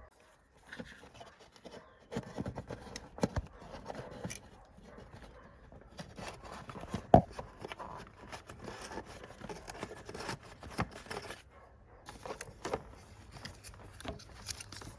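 Hands working a wiring lead up through a motorcycle's frame and under the airbox: rustling with scattered light clicks and taps of wire and plastic parts, and one sharper knock about seven seconds in.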